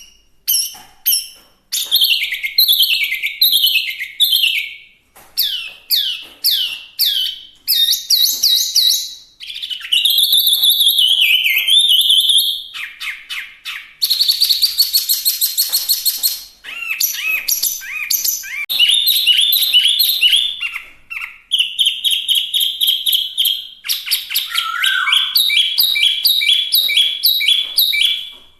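Chinese hwamei (wambi) singing loud, varied song: runs of quick falling notes, gliding whistled phrases and fast series of repeated notes, with short pauses between phrases.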